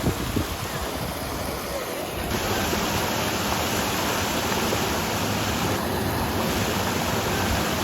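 Creek water pouring over a small limestone waterfall: a steady rushing that gets fuller about two and a half seconds in.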